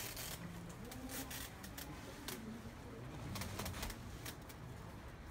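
A pigeon cooing faintly, a few low, gently wavering calls, over scattered light clicks and knocks.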